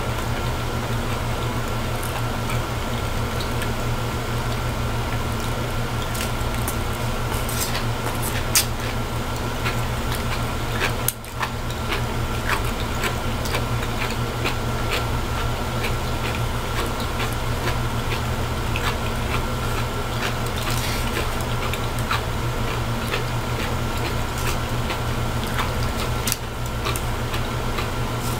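Close-up eating sounds: chewing and slurping of zucchini noodles, with many short scattered clicks and crinkles, over a steady low hum.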